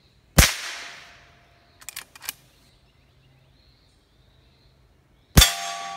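Two shots from a Henry H001 Classic lever-action .22 LR rifle, about five seconds apart, each with a short fading tail. A few sharp metallic clicks about two seconds in are the lever being worked to chamber the next round.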